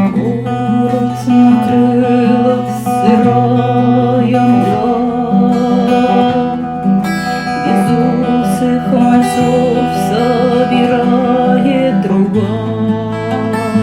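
Instrumental introduction of a song: acoustic guitar accompaniment with a bass line that changes note every second or two, and a wavering melody line over it.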